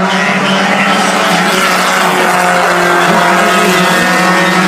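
Stock car engines running hard as two race cars pass by on the oval, a loud steady drone whose pitch shifts slightly.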